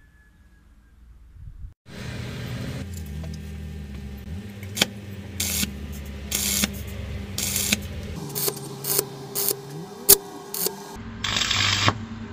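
Stick (arc) welding: the electrode's arc crackles in a series of short bursts starting about two seconds in, with a longer burst near the end, as the rod is tack-welded to the steel shaft.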